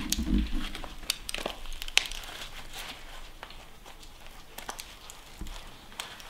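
Plastic and metal parts of an old mobile phone cracking and crinkling in scattered sharp clicks as gloved hands twist and bend them apart, with a dull bump just at the start.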